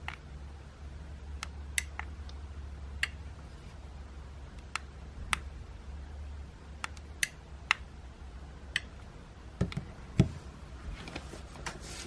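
Sharp clicks of the push buttons on a handheld gate remote control being pressed, about a dozen at irregular spacing. Near the end come two duller knocks of plastic remotes being set down on a table.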